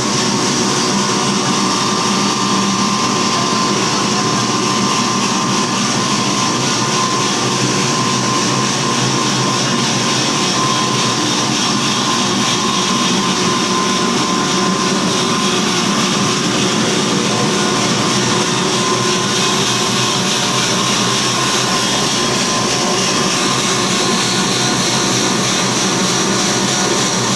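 Poultry feed grinder running steadily: a loud, even mechanical noise with a faint steady hum under it.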